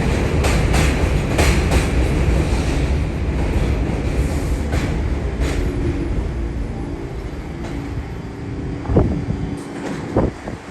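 New York City subway train running past, its wheels clicking over rail joints over a heavy rumble that fades away through the middle. A steady hum follows, with a couple of short thumps near the end.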